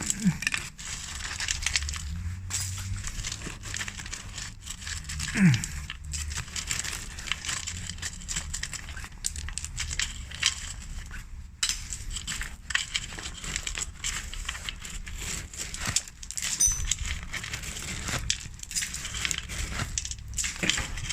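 Irregular crunching and crackling with many small clicks, from broken concrete rubble being stepped on and handled. About five and a half seconds in, a short, loud sound drops sharply in pitch.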